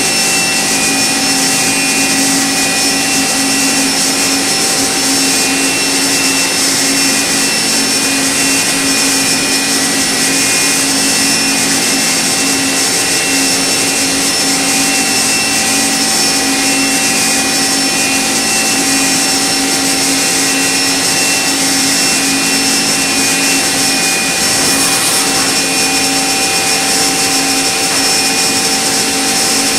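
Okuma MB-5000HII horizontal machining center running with its spindle turning: a steady, unchanging whine of fixed tones under a constant hiss.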